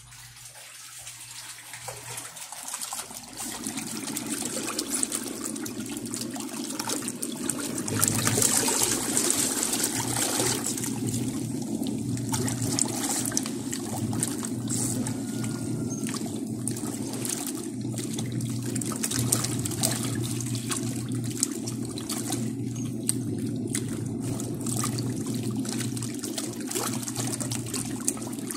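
Dako 4 kg tanquinho (small top-loading washer) agitating soapy water and clothes with its fast-spinning pulsator: a steady motor hum under continuous sloshing and splashing. The sound rises over the first few seconds and gets louder about eight seconds in.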